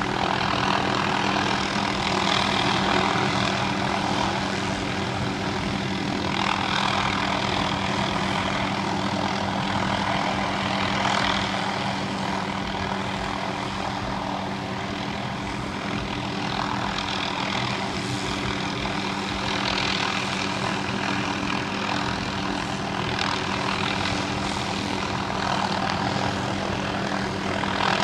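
Small helicopter hovering, its engine and rotor running steadily with a constant low hum.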